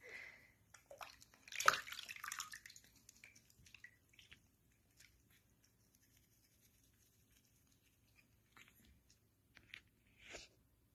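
Bath water splashing and dripping in a sink as a capuchin monkey is washed: a louder splash about two seconds in, then faint drips and small splashes, and a short burst of noise near the end.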